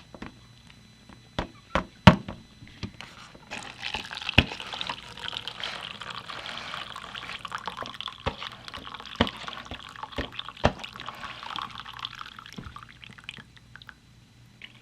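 A few knocks and clunks of handling. Then hot water is poured off instant ramen noodles, draining in a steady splashing stream for about nine seconds, with occasional knocks, and it tails off near the end.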